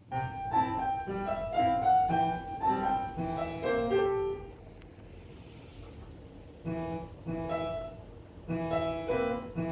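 Solo piano music: a slow melody of single notes over chords. It breaks off for about two seconds midway, then resumes.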